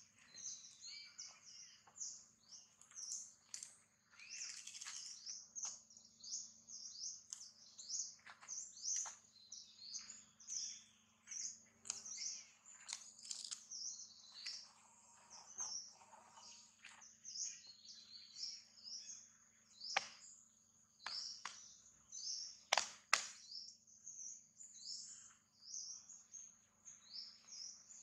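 Many small birds chirping continuously in short, high-pitched, overlapping calls. A sharp click comes about two-thirds of the way through, and two louder ones follow close together soon after.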